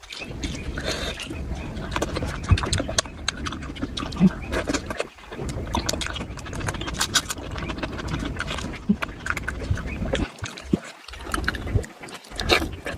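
Close-miked eating sounds: wet chewing and lip smacking in a dense, uneven run of small clicks and smacks, with a couple of brief pauses.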